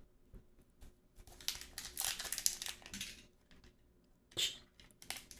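Trading card pack wrapper crinkling and tearing as it is ripped open by hand. The crackling runs from about a second in until about three seconds in, with a short crinkle again near the end.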